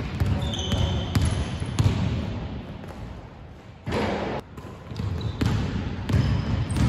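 A basketball being dribbled on a hardwood court, with repeated bounces and the short, high squeaks of sneakers as players move and cut.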